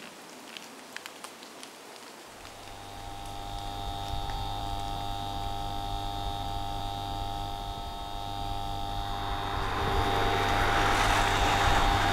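Ominous horror-film drone: several steady held tones fade in a couple of seconds in, and a rising hiss swells over them toward the end. A few faint clicks come first.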